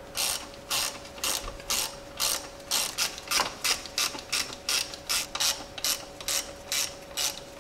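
Hand socket ratchet tightening the power steering pump bolts: a steady run of quick back-and-forth strokes, each a short burst of pawl clicks, about two a second.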